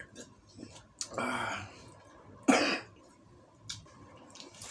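A man coughing and clearing his throat after gulping warm tea: a raspy burst about a second in, then one sharp, louder cough about two and a half seconds in.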